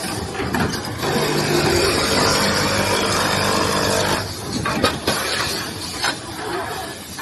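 Automatic towel sewing machine running a stitching pass for about three seconds, a steady mechanical hum, then stopping, followed by a few sharp mechanical clacks.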